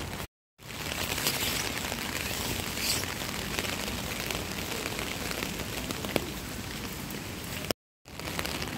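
Steady rain falling on wet pavement, an even hiss with scattered faint drop ticks. The sound cuts out completely twice for a moment, once just after the start and once near the end.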